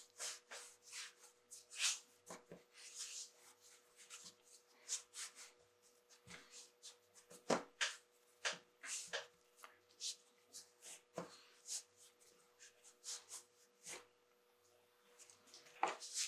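Hands kneading and rolling a ball of egg pasta dough on a floured wooden board: irregular soft rubs and pats of dough against the wood, with a few firmer thumps, the loudest about halfway through and another near the end.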